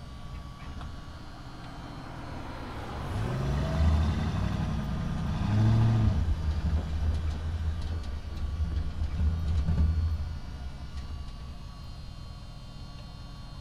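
Diesel engine of a tracked mini excavator running, revving up and down a few seconds in as its hydraulics lift a rail track panel on a spreader beam. It settles back and eases off after about ten seconds.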